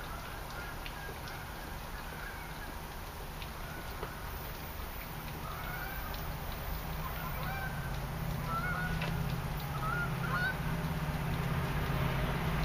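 Geese honking, a scatter of short calls, over a steady low engine hum that grows louder in the second half.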